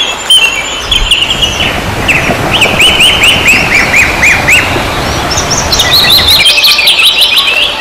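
Songbirds chirping: quick runs of short, clear whistled notes, several in a row at a time, the notes moving higher in the last couple of seconds.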